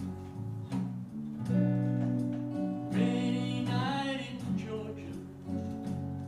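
Acoustic guitar music, chords held and changing over a looper backing track.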